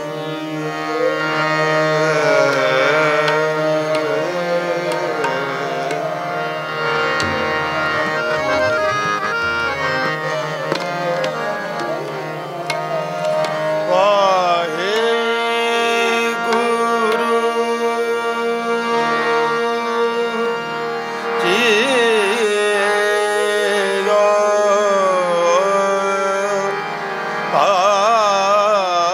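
Sikh kirtan: a male voice singing long, gliding ornamented phrases over a harmonium's held notes, with tabla accompaniment.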